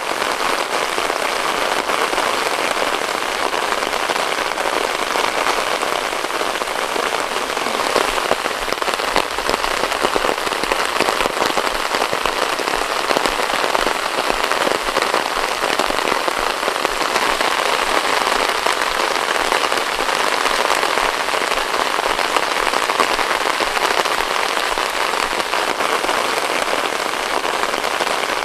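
Heavy rain falling steadily: a dense, even hiss of rain with many close individual drop strikes in it.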